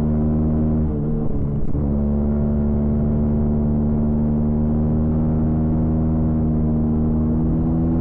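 Stock Honda CB125R's single-cylinder engine running under way at steady cruising revs. There is a short break in the engine note with a shift in pitch between one and two seconds in, then a constant note.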